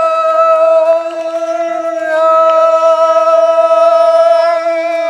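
Men singing unaccompanied, holding one long steady note of a Rongmei forest folk song.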